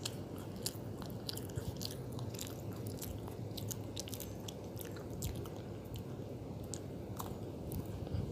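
Cookie being bitten and chewed close to the microphone: a run of quick, irregular crunchy crackles over a steady low hum.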